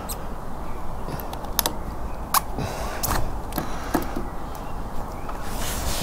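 Utility knife slicing through rubber roofing membrane along the roof edge, with scattered sharp clicks and short scraping strokes over a steady low rumble.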